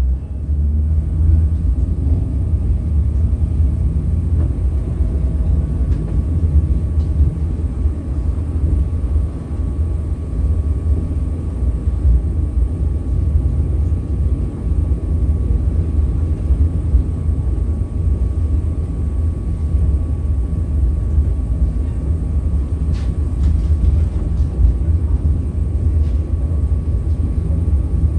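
Onboard sound of English Electric Millennium Car tram 707 running along the track: a steady low rumble, with a faint steady hum above it and a few light clicks near the end.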